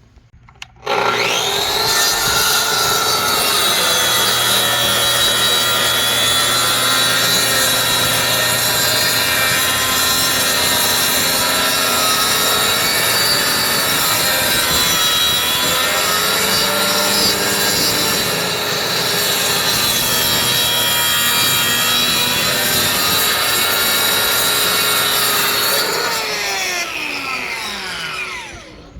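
Plunge-cut track saw starting with a rising whine, running steadily while cutting through wood along its guide rail, then winding down with a falling whine near the end.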